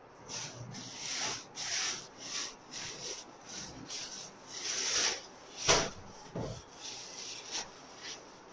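Plastic-wrapped garments rustling as they are handled and packed into a cardboard box, in short swishes about twice a second, with one sharper knock just before the end of the sixth second.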